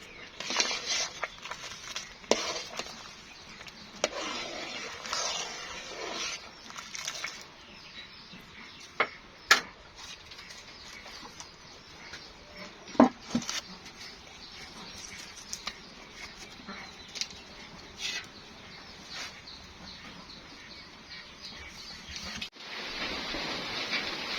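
Food preparation handling sounds: scattered knocks, clicks and rustling, with one louder knock about halfway through. Near the end the sound changes to a steady hiss like food sizzling in a pan.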